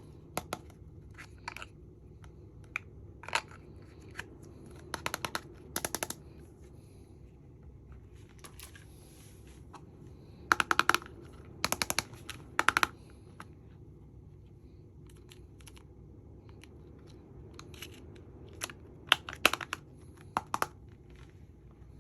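Irregular sharp clicks and rattling taps from handling small plastic makeup cases and pieces, some single and some in quick clusters a few seconds apart, over a steady low hum.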